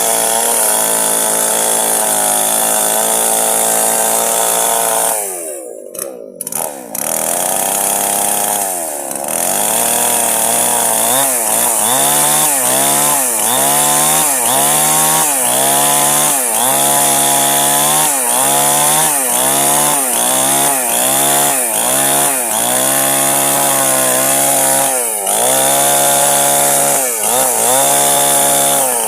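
Chainsaw running at high revs while cutting wood; about five seconds in the sound briefly drops away, then the engine note repeatedly sags and recovers about once a second as the chain is loaded in the cut.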